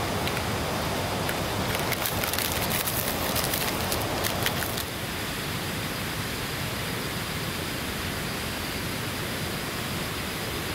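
Heavy rain falling steadily, with many sharp drop ticks over the first half. About halfway through it changes abruptly to a smoother, steadier hiss.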